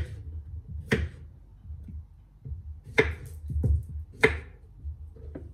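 Chef's knife cutting cucumbers against a wooden cutting board: four separate sharp chops spaced a second or two apart, then a fainter tap near the end.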